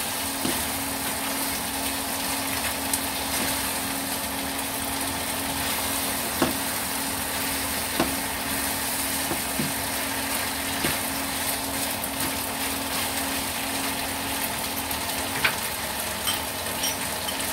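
Eggplant and minced pork sizzling in a wok, with a steady low hum underneath and a few sharp knocks of a spatula against the pan.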